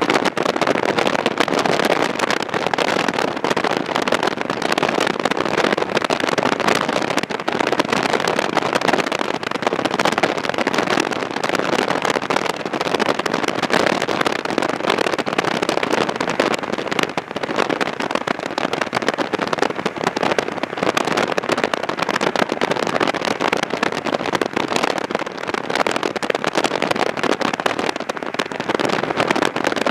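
Steady tyre noise of a car driving on a gravel road, a rushing sound with a fine, continuous crackle of gravel under the tyres.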